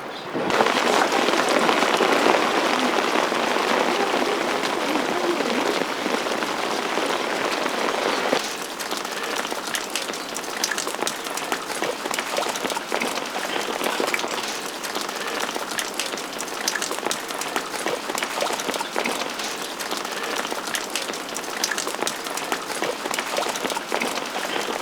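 Rain falling on surfaces, a steady patter of drops. It is dense and heavier for about the first eight seconds, then thins to a lighter patter of many separate drop ticks.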